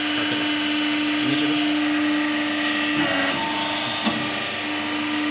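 Vertical plastic injection moulding machine running, its hydraulic pump motor giving a steady hum, with a short clack about four seconds in.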